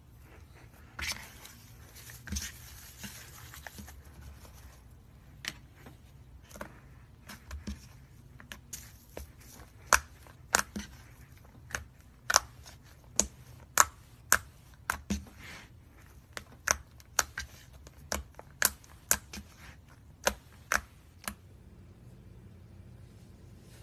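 Slime being handled: a crinkly, tearing stretch at first, then a long run of sharp, irregular clicks and pops, about one or two a second, that stop shortly before the end.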